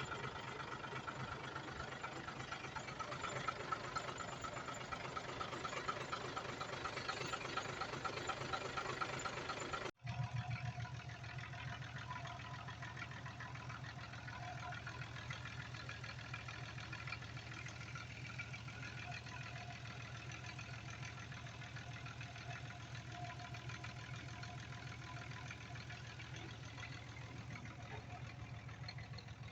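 Diesel engines of heavy earthmoving machinery running steadily. About ten seconds in, an abrupt cut switches from a noisier, brighter mix to a single engine with a steady low throb.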